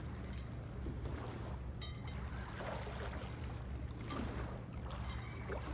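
Small waves of lake water lapping against a stone shore edge, over a low steady hum.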